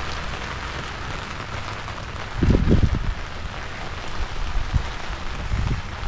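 Steady hiss of rain falling around the boat and on the water, with a brief low rumble about two and a half seconds in.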